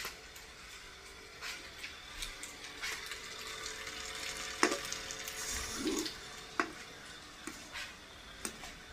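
Thin coconut milk heating in a metal pan toward the boil, with a hiss that builds through the middle and a few sharp clicks. Near the end a metal ladle stirs it in the pan.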